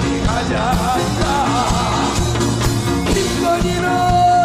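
Live Korean folk-song singing (sori) over a rock band of bass guitar and drum kit: the voice sings with a wide, wavering vibrato and ends on a long held note.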